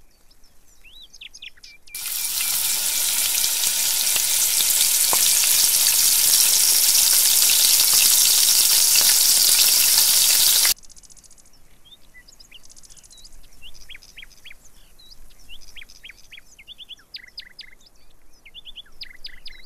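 Hot oil sizzling loudly as poha fingers deep-fry in a miniature kadai. The sizzle starts abruptly about two seconds in and cuts off suddenly about nine seconds later. Birds chirp before and after it.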